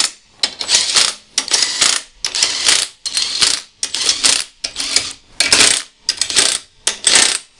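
Makita 18V cordless impact driver with a 13 mm socket hammering bolts tight, in about a dozen short bursts, each under a second.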